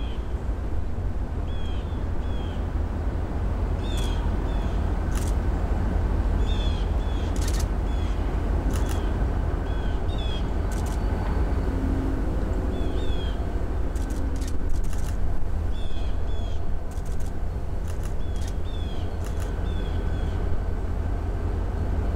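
Diesel-electric locomotive running with a steady low rumble as it pulls passenger cars slowly forward. A bird repeats short, slurred chirps every second or two over it, and a few sharp clicks come and go.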